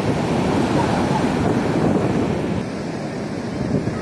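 Sea surf breaking on a sandy beach, a steady roar of waves. About two and a half seconds in it drops a little in level.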